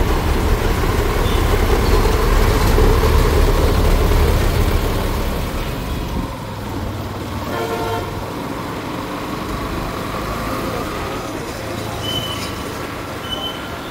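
City traffic heard from a moving motorcycle: a loud low rumble while it passes between buses, easing off about six seconds in. A vehicle horn toots briefly about eight seconds in, and two short high beeps come near the end.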